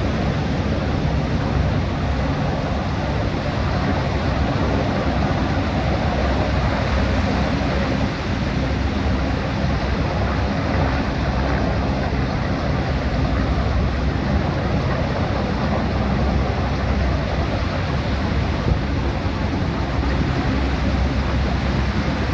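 Steady drone of an EH-101 Merlin, a three-engine helicopter, flying low over the sea. It mixes with the wash of breaking surf and wind on the microphone.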